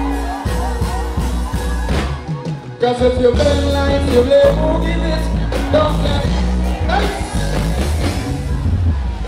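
Live band with a male vocalist singing into a microphone through the stage PA over a heavy bass line. The bass drops out briefly about two and a half seconds in, then comes back.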